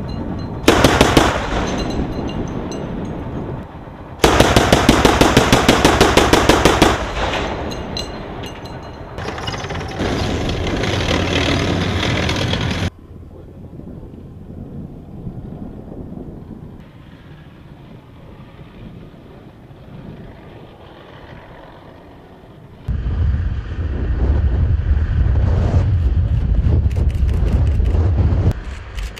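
Rapid automatic gunfire in bursts, the longest a few seconds long with several shots a second, in cut-together clips that stop abruptly; a heavy low rumble takes over in the last few seconds, with more shots near the end.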